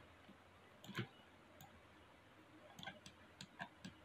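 Faint, scattered clicks of a computer mouse and keyboard: one about a second in, then a cluster of several quick clicks in the last second and a half.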